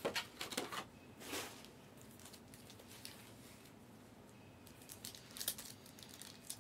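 Foil wrappers of Optic hobby trading-card packs crinkling and tearing as they are opened by hand, in short bursts in the first second or so and again near the end, with quieter handling between.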